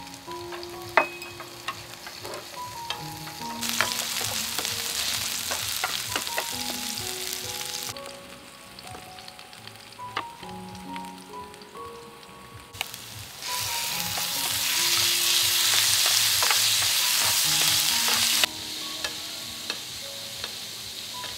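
Food sizzling in a hot frying pan on a portable gas stove, in two loud stretches of a few seconds each that start and stop abruptly. Chopsticks click against the pan and utensils in between.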